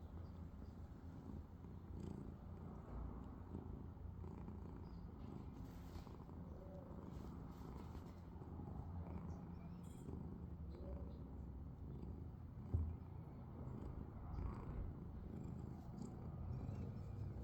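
A domestic cat purring steadily, a low, continuous rumble, with one brief knock about thirteen seconds in.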